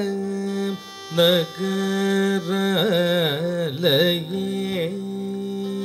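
Carnatic vocal music accompanying Mohiniyattam dance: a long held note, broken in the middle by quick wavering ornaments that slide up and down in pitch, then held steady again near the end.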